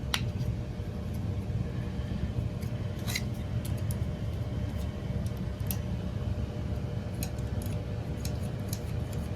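Scattered small sharp clicks and snips of hands working a zone valve's actuator and its wiring, over a steady low hum of boiler-room equipment.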